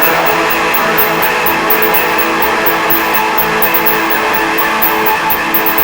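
Instrumental music on strummed guitar, steady and loud.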